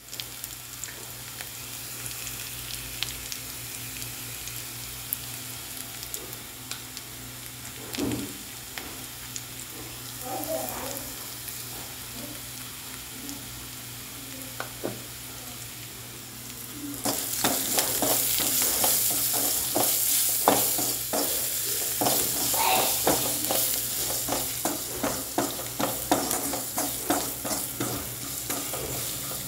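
Sliced onions, green chillies and curry leaves sizzling in oil in a kadai, stirred with a spatula that scrapes and knocks against the pan. About halfway through the sizzle gets louder and the spatula strokes come quick and frequent.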